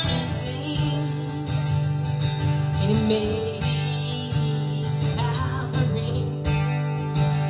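Acoustic guitar strummed with a singing voice over it: a live solo performance.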